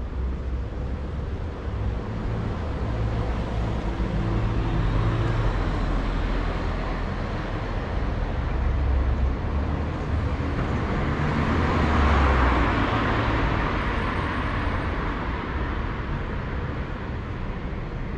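Street traffic: motor vehicles passing on a city road with a low engine hum. One passes close, its tyre hiss building to a peak about twelve seconds in and then fading away.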